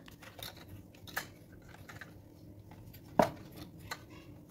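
Faint clicks and taps of a plastic toy helicopter being handled and turned over in the hands, with one sharper knock about three seconds in.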